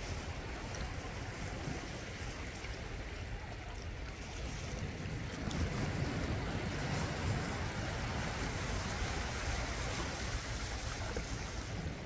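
Sea waves breaking and washing over black basalt rocks at the shoreline, a steady rush that swells louder about halfway through as a larger wave breaks.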